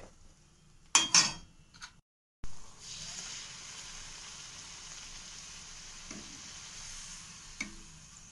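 A puri deep-frying in hot oil in an iron kadhai, a steady high sizzle. About a second in come two loud metal clanks from the steel spatula against a pot, then a brief gap before the sizzle begins.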